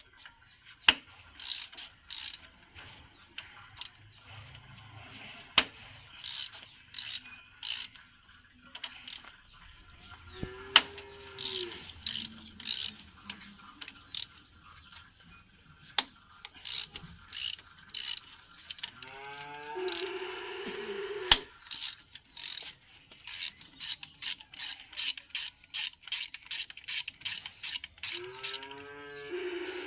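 Socket ratchet wrench clicking in quick runs while it undoes the bolts of a tractor's PTO housing cover. A few single sharp metal clinks stand out above it.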